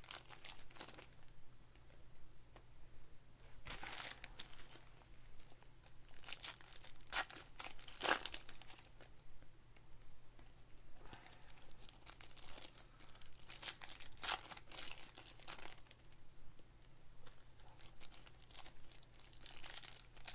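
Foil trading-card pack wrappers being torn open and crinkled by hand, in irregular bursts, the loudest about eight seconds in.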